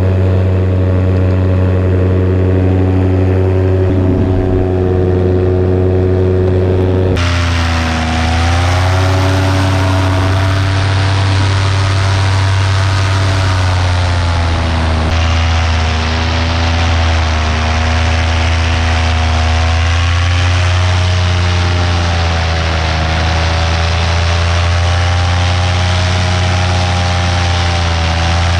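Two-stroke paramotor engine and propeller running steadily in flight. About seven seconds in the sound changes to a hissier mix with wind noise, and the engine pitch rises and falls slowly as the throttle and flight change.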